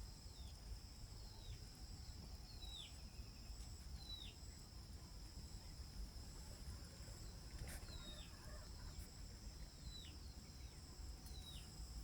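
Faint outdoor ambience: a bird repeats a short downward-sliding chirp every second or so, pausing midway, over a steady high-pitched insect drone.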